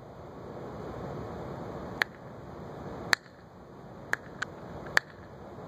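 Five short, sharp clicks at uneven intervals, two of them close together, over a steady background hiss.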